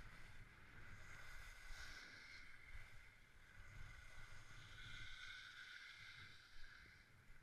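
Skis sliding over groomed, packed snow: a faint, steady hiss and scrape, with a low rumble of wind on the microphone.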